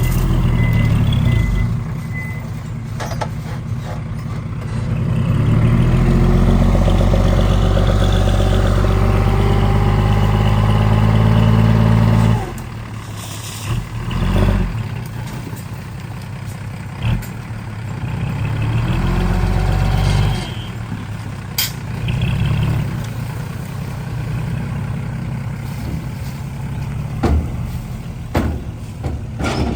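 Diesel dump truck engine, with reversing beeps at the start. The engine revs up, is held at high revs for several seconds, then drops suddenly about twelve seconds in. It runs on at lower revs, with a few short air-brake hisses.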